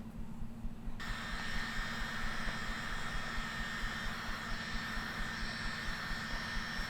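Heat gun switched on about a second in, its blower running steadily with a thin high whine over a rush of air.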